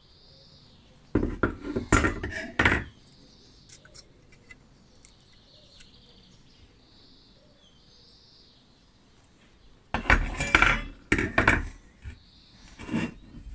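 Rusty sheet-metal parts of a 1950s Harper Beatrice 33 boiling stove clanking and scraping against each other as they are worked loose and lifted out of the stove's body, in two bursts of quick knocks about eight seconds apart, with a short clank near the end.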